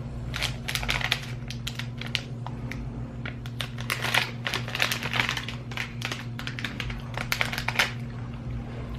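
Eating a soft snickerdoodle cookie close to the microphone: bites and chewing come through as irregular clicky mouth sounds, bunched into flurries, over a steady low electrical hum.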